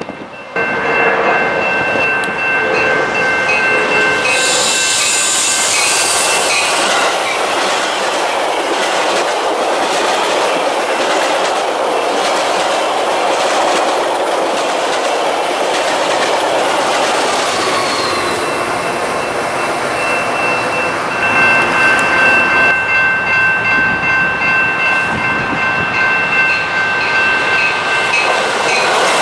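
Metra bilevel gallery commuter cars rolling past close by, a continuous rumble of wheels on rail with a rhythmic clickety-clack over the rail joints. A grade-crossing warning bell rings as a steady high ringing over the first few seconds and again over the last nine or so seconds, as the signals are active for a passing and an approaching train.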